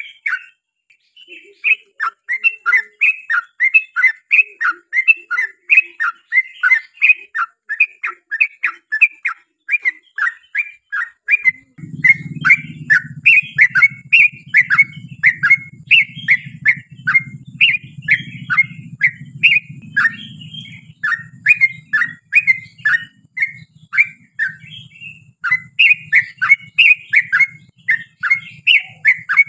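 Yellow-vented bulbul (trucukan) singing a long, unbroken run of short chirping notes, about three a second. From about 12 seconds in, a low rumble runs underneath.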